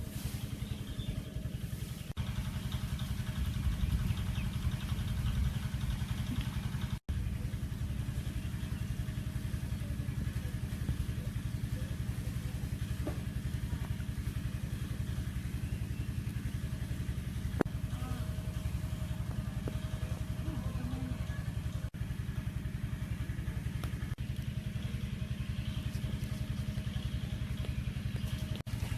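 An engine running steadily at a constant speed, with a low hum.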